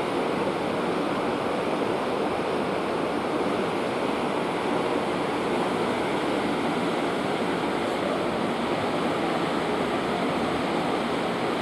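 Steady rushing and churning of seawater in a cruise ship's wake, an even noise with no breaks, mixed with wind.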